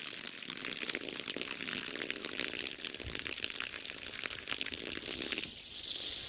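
Steady rush of water running through a garden hose, fading out near the end as the water supply is turned off.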